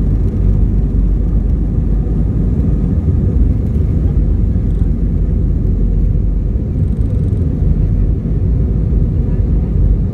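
Jet airliner on its takeoff run, heard inside the passenger cabin: a loud, steady low rumble from the engines at takeoff power and the run down the runway.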